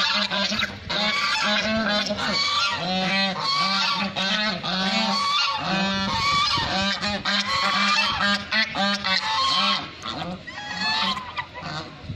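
Several white domestic geese honking over and over, their calls overlapping, with a short lull about ten seconds in.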